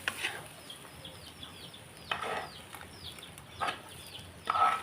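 Chickens clucking, with a few louder calls and many short, high, falling cheeps throughout.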